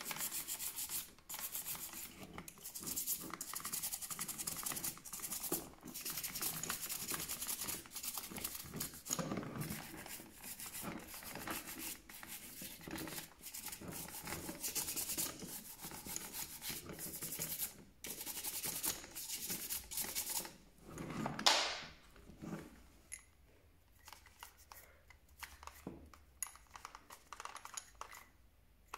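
Hand scrubbing and rubbing on the plastic housing of a Parkside PSBM 500 B3 hammer drill being cleaned, in quick back-and-forth strokes. A louder swell comes a little past twenty seconds, then it turns quieter, with scattered light clicks of handling.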